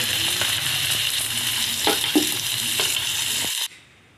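Sliced onions frying in plenty of hot oil: a steady sizzling hiss with a couple of sharp knocks near the middle. It cuts off suddenly about three and a half seconds in.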